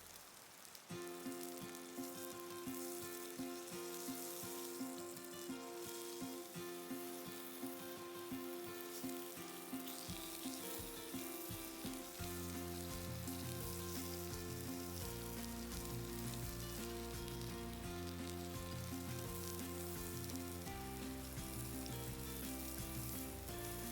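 Food sizzling as it fries in a pan, under background music; a bass line comes into the music about halfway through.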